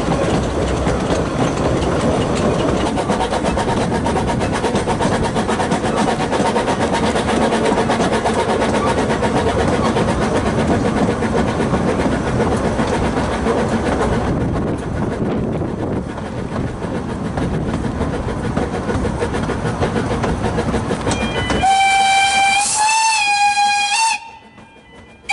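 Narrow-gauge steam locomotive hauling its carriages, heard from right behind it: a steady running rumble and clatter of wheels on the rails that eases a little about halfway. Near the end the locomotive's steam whistle gives one long blast of a couple of seconds, wavering slightly in pitch, then cuts off.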